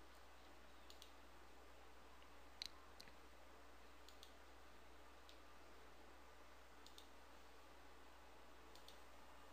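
Near silence broken by a few faint, separate computer mouse clicks, the clearest about two and a half seconds in.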